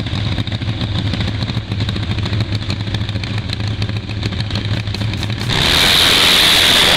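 Top Fuel drag motorcycle engine idling with a fast, lumpy beat, then about five and a half seconds in it goes to full throttle for the launch, much louder, as the rear tyre sprays dirt.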